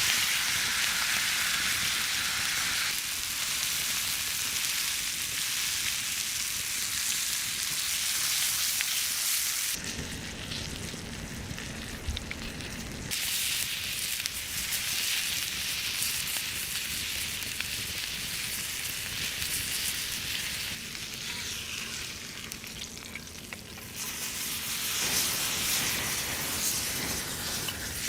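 Steak frying with a steady sizzle. The sizzle changes in strength abruptly several times and thins out for a few seconds about ten seconds in.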